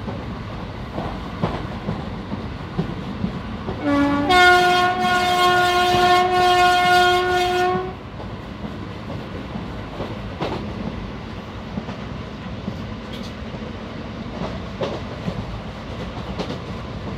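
Moving Indian Railways train running with a steady rumble and occasional wheel clicks over rail joints. About four seconds in, the train horn sounds for about four seconds, a brief lower note and then one long steady note, and the rumble carries on after it.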